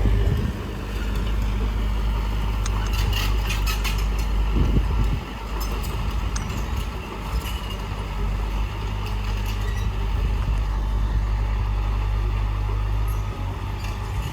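Diesel engine of heavy earthmoving machinery running steadily with a deep drone, with a cluster of knocks and rattles about three to four seconds in.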